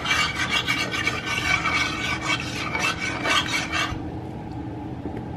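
Metal spoon scraping and stirring beaten eggs in a frying pan: a quick run of rasping strokes against the pan that stops about four seconds in.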